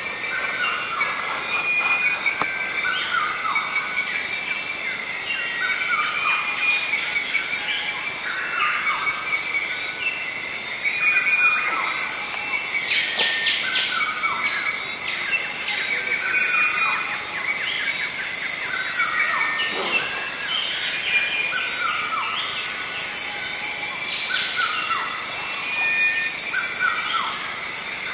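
Tropical rainforest chorus: a steady, high-pitched insect drone on two pitches, with birds calling over it, a falling call repeating every few seconds.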